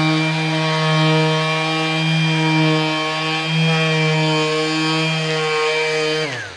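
Cordless 6-inch dual-action sander with a 2000-grit disc dry-sanding a plexiglass window: a steady motor hum that winds down, falling in pitch, as it is switched off near the end.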